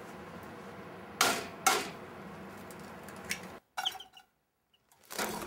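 Two sharp knocks half a second apart, with a lighter click later, as kitchen things are handled at a counter, over a steady hiss. The sound then cuts out abruptly.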